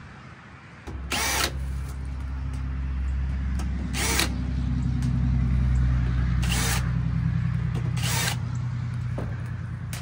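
A drill whirring in four short bursts, backing screws out of a unit panel, over a steady low machine hum that starts about a second in.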